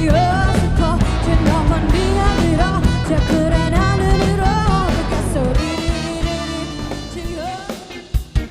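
Live band performing a K-pop cover song, with a sung melody over bass, drums and guitar. About five and a half seconds in, the bass drops out and the music thins, leaving sparse drum hits near the end.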